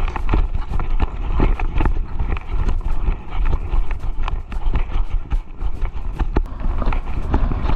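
Irregular footsteps with clicking and knocking from carried gear. A heavy rumble of wind buffeting the microphone runs underneath.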